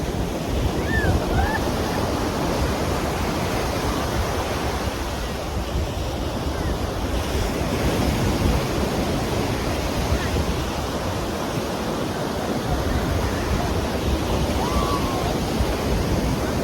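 Ocean surf breaking and washing on the shore, a steady rushing wash, with wind buffeting the microphone.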